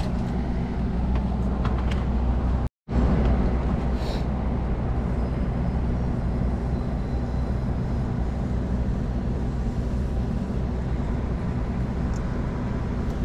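A steady low mechanical drone, like an engine or machinery running, with a constant low hum under it. It cuts out for a moment about three seconds in.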